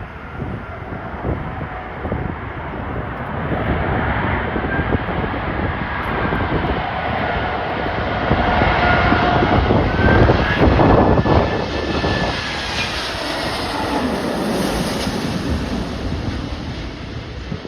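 Jet airliner on final approach passing close by, its engine rumble and whine swelling to a peak about ten seconds in and then fading, the whine gliding in pitch as it goes past. Gusty wind buffets the microphone throughout.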